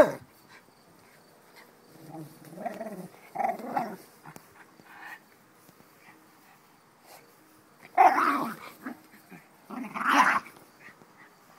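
Jack Russell terrier growling in play while mouthing a large plastic ball, in three bouts: a longer one after about two seconds, then two short, louder ones near the end.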